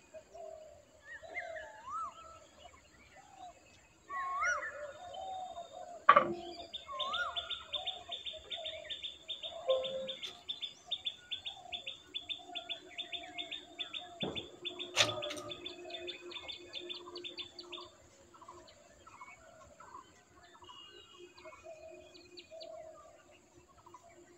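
Birds chirping and calling, with short rising whistles in the first few seconds and a high, rapid ticking trill from about six to eighteen seconds in. Two sharp knocks cut through, a loud one about six seconds in and another about fifteen seconds in.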